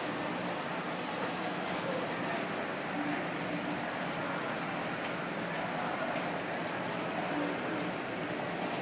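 Claypot chicken hot pot sizzling on its tabletop burner: a steady hiss with fine crackle.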